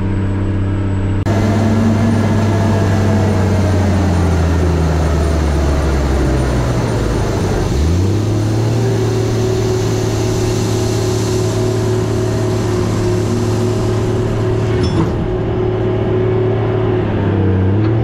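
A tracked tractor's diesel engine pulling an air seeder, heard inside the cab for about the first second, then from outside behind the cab along with the noise of the drill working the ground. The engine note sinks slowly for several seconds, then climbs back quickly about eight seconds in and runs steady. There is a single knock near fifteen seconds.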